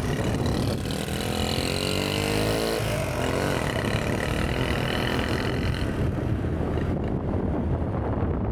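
Small single-cylinder four-stroke engine of a restored Honda Super Cub 50cc running. About a second and a half in the revs climb, then drop suddenly near three seconds, before it settles back to a steady run.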